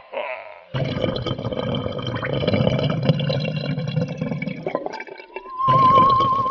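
Cartoon water sound effect, gurgling and bubbling, as a clay water puddle rises up into a creature. Near the end a wavering high tone comes in.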